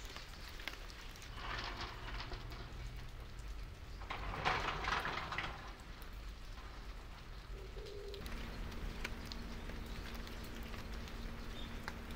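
Steady rain falling and pattering on the garden and the house, with two brief louder swells of noise, the loudest about four to five seconds in.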